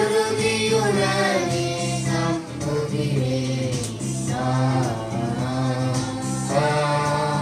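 A choir singing a hymn in several voices, women's among them, over held low chords from an accompanying instrument, in phrases with short breaths between them.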